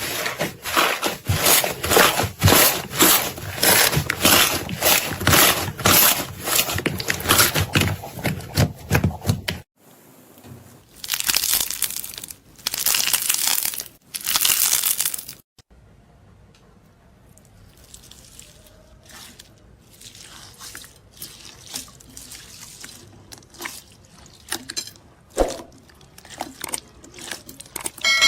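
Slime being squished and pressed, with a quick run of wet clicks and pops for about ten seconds. Then come a few longer crunchy squishes, and after that quieter, scattered crackling pops.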